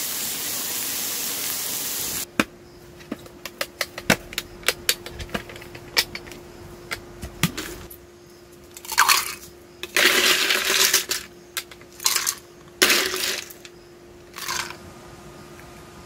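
A steady rushing noise cuts off about two seconds in. A run of light clicks and clinks follows, then several short hissing bursts near the end, over a faint steady hum.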